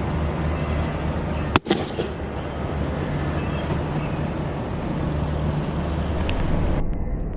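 A balloon popping once with a single sharp bang about a second and a half in, over a steady low rumble.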